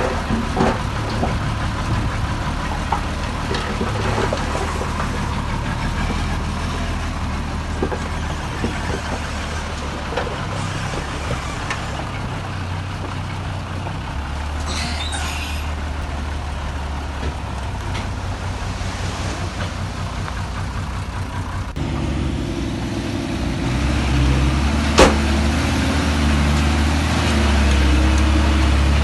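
Heavy diesel construction machinery running steadily with a low engine hum. There is a short hiss about halfway through and a sharp click near the end.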